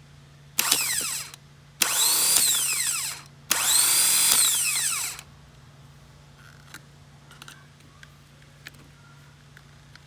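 Electric power drill run in three bursts, short then two longer, each a whine that spins up and winds down.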